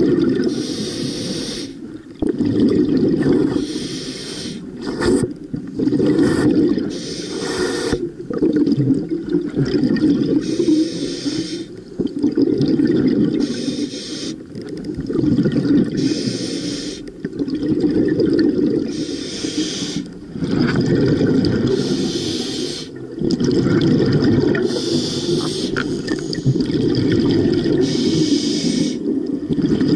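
Scuba diver breathing through a regulator, picked up underwater: a hissing inhale every few seconds, each followed by a low bubbling exhale.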